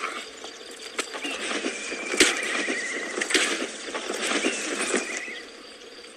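Horses whinnying twice, each a wavering call about a second long, with several sharp blows of a fight in between; the loudest blows come about two and three and a half seconds in.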